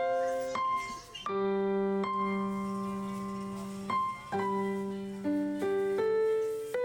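Background music: a slow keyboard melody of long held notes, one or two changing at a time, with a low note held under them for about two and a half seconds in the middle.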